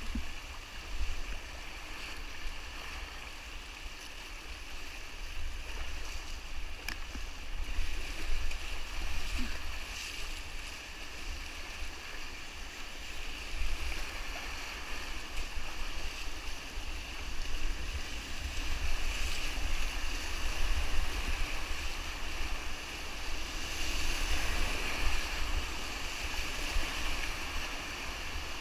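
Rushing whitewater river: a steady hiss of moving water that swells and eases slightly, with a low, gusty rumble of wind on the microphone.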